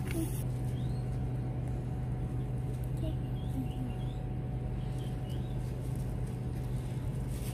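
Steady low hum throughout, with a few faint, high, short bird chirps between about three and five seconds in.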